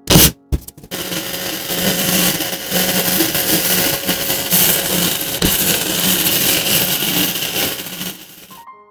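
A small electric motor running steadily for about seven seconds, starting just after a sharp knock and cutting off abruptly near the end.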